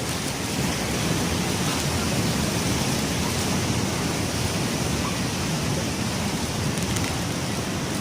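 Steady rushing of ocean surf on the beach, an even noise without pauses or separate wave crashes.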